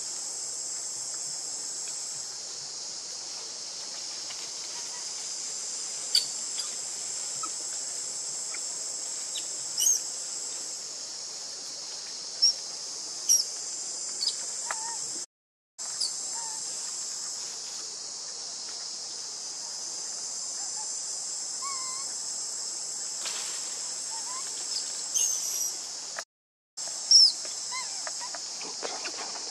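Steady high-pitched drone of insects, with scattered short bird chirps and a few sharp clicks over it, the loudest near the end. The sound cuts out twice for a moment.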